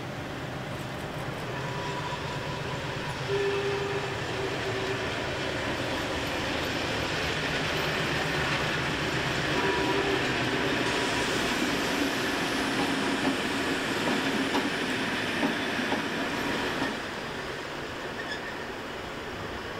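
Diesel locomotive engine running as the locomotive moves along the station tracks. It gets louder about three seconds in and drops to a quieter drone near the end.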